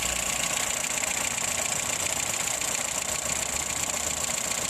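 Ford 1.3-litre four-cylinder petrol engine idling steadily, heard at the open engine bay, with a steady high hiss over it.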